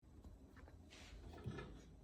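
Near silence: faint rustling, with a soft thump about one and a half seconds in.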